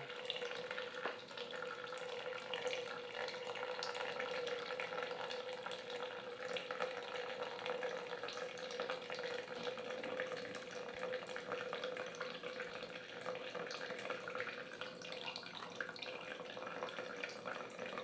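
Sawyer Mini water filter, gravity-fed from a squeeze pouch without squeezing, running a thin, steady stream of filtered water into a plastic cup. A steady hum sits underneath.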